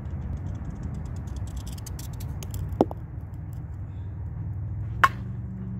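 A slow-pitched softball struck by a Louisville Slugger Steven Lloyd slow-pitch bat: one sharp, ringing crack near the end. A duller double knock comes about halfway through, over a steady low rumble.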